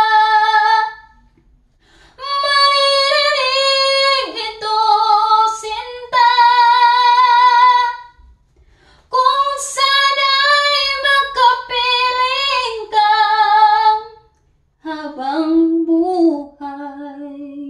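A woman singing a slow Tagalog love song unaccompanied, drawing out long held notes in phrases broken by short pauses for breath. The last phrase is lower.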